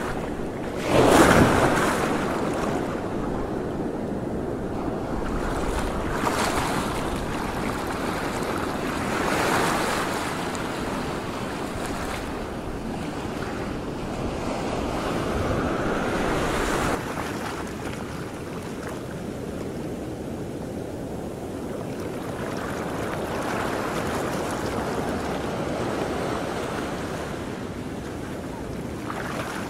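Sea waves washing in slow surges, with wind buffeting the microphone; the loudest surge comes about a second in.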